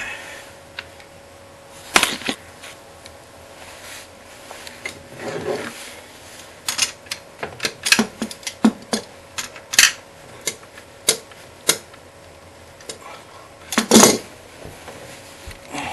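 Tongue-and-groove pliers clicking and clacking against a toilet's closet-bolt nut as it is loosened at the base of the toilet: scattered sharp metal clicks, a quick run of them in the middle, with harder knocks about two seconds in and near the end.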